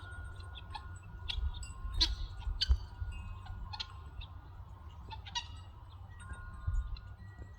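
Domestic guinea fowl giving scattered short, harsh calls, the loudest about two to three seconds in, with faint steady ringing tones underneath.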